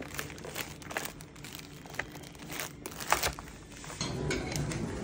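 Scattered soft clicks and crinkling rustles from something being handled, the sharpest a little after three seconds in.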